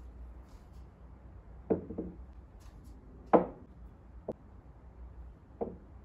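Small ceramic vases being set down on a wooden tabletop: five short knocks, the loudest about halfway through.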